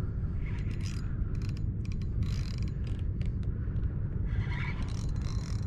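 Spinning reel being cranked against a hooked redfish, its gears and drag giving short ratcheting clicks and bursts of whirring, over a steady low wind rumble on the microphone.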